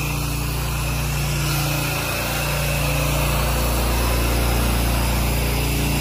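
Pressure-washer engine running steadily, with the constant hiss of water spraying from the wand onto vinyl siding as the house is wetted down before the sodium hypochlorite soft wash.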